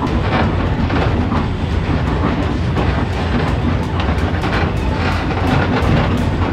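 Vintage electric trolley car running along its track, heard from inside the car: a steady low rumble with rapid clicks and rattles from the wheels on the rails.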